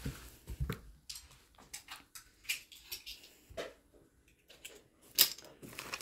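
Scattered light clicks and taps of cooked shellfish being shelled by hand, with one sharper click about five seconds in.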